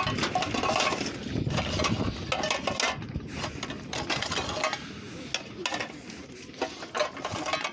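Old metal tins clinking, clattering and scraping against one another as a hand rummages through them in a wicker basket, in short irregular bursts of rattling throughout.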